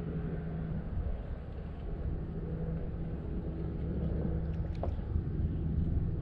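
Low, steady rumble of wind on the camera microphone, with one faint click about five seconds in.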